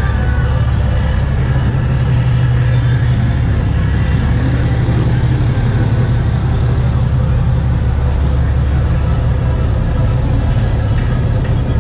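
Pickup trucks rolling slowly past in a line, a steady low engine and exhaust rumble with a faint rise and fall in pitch partway through.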